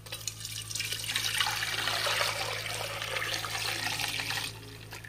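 Banana-stem squash mixture poured from a plastic jug through a wire-mesh strainer, splashing and trickling through the mesh; the pour stops about four and a half seconds in.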